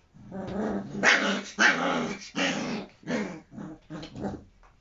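Four-week-old Alaskan Malamute puppies growling while they play-fight: a string of short, rough growls, loudest in the first half and fading out near the end.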